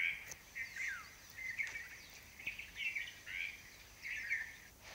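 Bird chirping in a run of short, scratchy calls about every three-quarters of a second, some sliding quickly down in pitch. The calls stop abruptly near the end.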